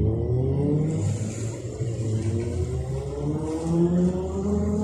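Jet ski engines revving, their pitch climbing again and again as they accelerate, over a low steady engine drone.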